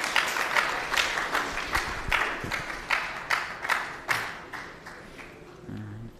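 Audience applauding, the clapping thinning to a few scattered claps and dying away about four to five seconds in.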